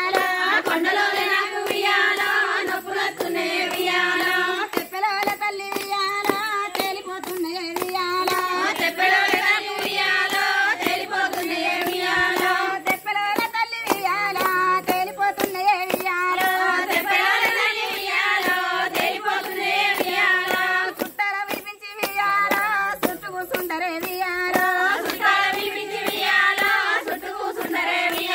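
Group of women singing a Telugu Bathukamma folk song together, clapping their hands in a steady rhythm to keep time.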